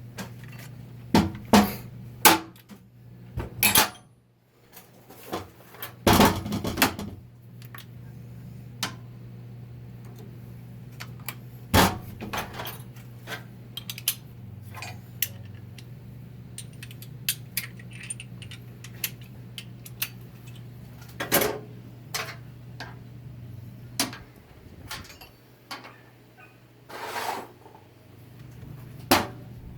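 Metal transmission parts and tools clinking and knocking irregularly as a 4L60-E is being taken apart, with a steady low hum under most of it that stops near the end.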